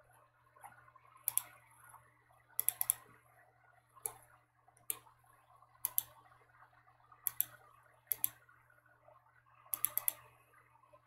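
Computer mouse buttons clicking, single clicks and quick double and triple clicks about once a second, over a faint steady hum.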